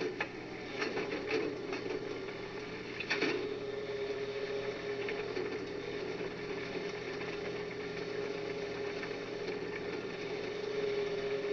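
Mini excavator running with a steady whine, with a series of clanks and knocks in the first few seconds as it works.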